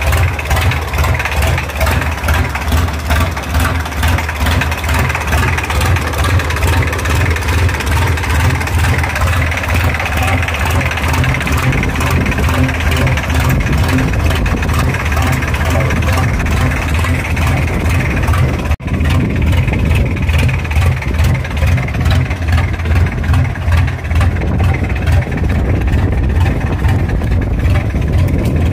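Side-by-side buggy's engine idling steadily through a short, open vertical exhaust stack.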